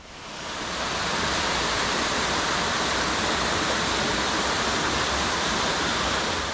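A small waterfall pouring over rocks into a pool: a steady rush of falling water. It fades in over the first second and fades out at the end.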